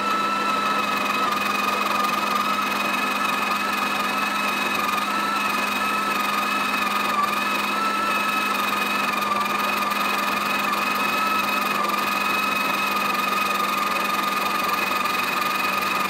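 Sage Oracle Touch espresso machine's built-in burr grinder running, grinding coffee beans: a steady motor whine over a low hum.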